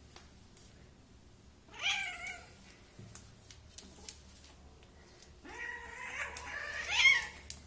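Domestic cat meowing twice: a short meow about two seconds in, then a longer, drawn-out meow from about five and a half seconds in that rises at its end and is the loudest sound. A few light clicks fall between the calls.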